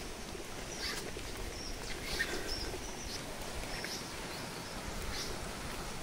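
Birds chirping in a forest, short high notes repeated every second or so, over a steady hiss of background noise, with some low rumbling near the end.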